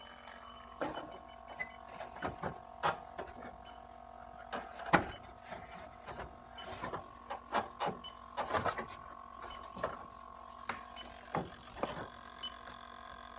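Irregular light clicks and taps of hands and an electronic refrigerant leak detector working around an air conditioner's indoor coil and refrigerant fittings while a leak is being pinned down, with a faint steady tone underneath.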